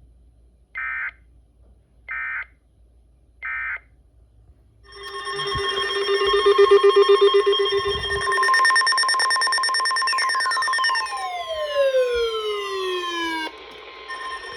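NOAA Weather Radio SAME alert heard through a radio's speaker: three short bursts of warbling data tones about a second apart, then, from about five seconds in, a loud steady alert tone near 1050 Hz layered with other held tones and several falling pitch sweeps, most of it cutting off near the end. It is the header and alarm tone announcing a new warning broadcast.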